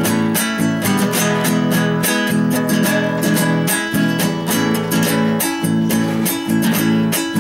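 Acoustic guitar strummed solo in a quick, even rhythm of chords, the instrumental introduction of a Chilean cueca.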